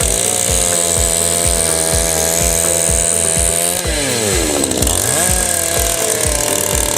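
A chainsaw's two-stroke engine running at high revs. About four seconds in it drops in pitch and then revs back up. Background music with a steady beat plays over it.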